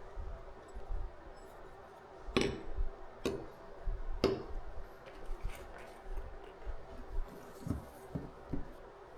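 Light clicks and knocks of hard objects being handled, three sharper ones close together in the middle and a few softer ones near the end, over a faint steady hum.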